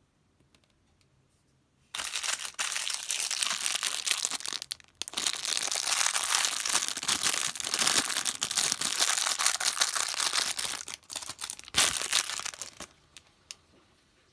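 Thin clear plastic bag crinkling as it is handled and opened, starting about two seconds in and running for about ten seconds with a short break near the fifth second. A few light taps follow near the end.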